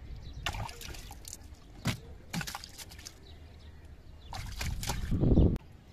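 Water sloshing and splashing, with several sharp splashes spread through. Near the end there is a loud low rush that stops abruptly.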